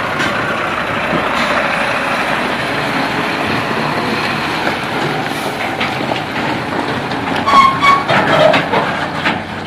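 UD Quester GWE 370 tractor unit running at low speed while it turns and pulls a long flatbed semitrailer. Clanks and a brief high squeal come near the end.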